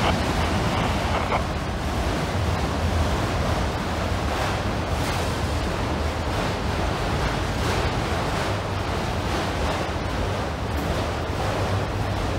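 Freight train of empty enclosed auto rack cars rolling past: a steady rumble and rush of steel wheels on the rails, with a few faint clicks.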